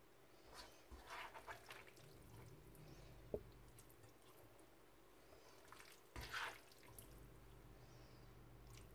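Faint soft squelches and rustles of cooked fusilli pasta with vegetables being scooped from a frying pan and dropped into a glass bowl, in two short bursts about a second in and about six seconds in, with a single light tap between them.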